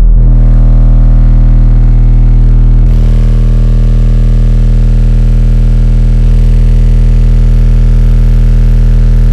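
Single 12-inch Rockville K9 car subwoofer in a ported box playing a steady 40 Hz test tone at full volume, a burp test driving it hard for a power measurement. It is a loud, deep, unbroken drone with a row of overtones above it.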